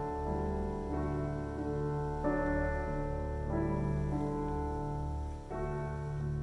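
Background music: sustained keyboard chords that change about every second or so.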